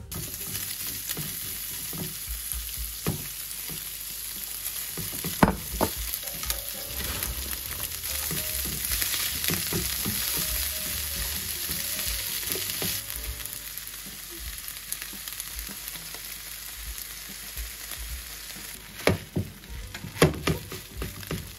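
Food sizzling in a frying pan, the sizzle louder for a few seconds in the middle, with a utensil clacking against the pan a few times, most often near the end.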